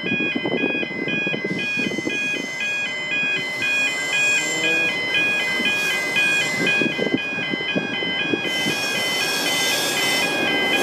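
Level crossing warning bells ringing, an electronic alternating two-tone pattern about twice a second, over the low rumble of an approaching N class diesel-electric locomotive.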